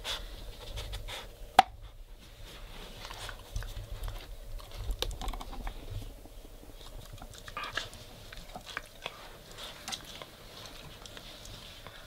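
A Weimaraner puppy nosing and chewing at the plastic cylinders of a treat-puzzle toy: scattered light plastic clicks and knocks with mouthing sounds, and one sharper click about a second and a half in.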